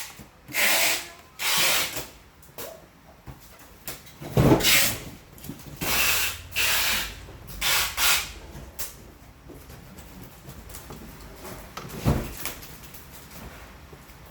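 A series of scraping strokes, each lasting about a second, about six in the first nine seconds, with a sharp knock in the middle and another near the end.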